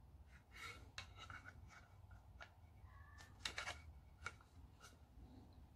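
Faint clicks and light scrapes of hard resin model-kit parts being handled and fitted together by hand, the loudest a short cluster of clicks about three and a half seconds in.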